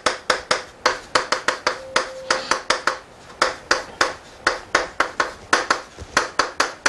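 Chalk writing on a blackboard: a rapid series of sharp taps and clicks, several a second, as each stroke of chalk strikes and drags across the board.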